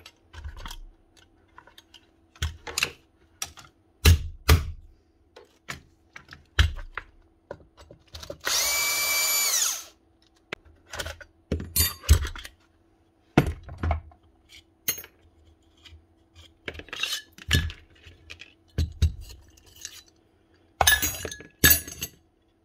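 Paslode nail gun parts and hand tools clicking and knocking irregularly as the gun is taken apart. Near the middle, a small power tool runs for about a second and a half, its pitch falling slightly.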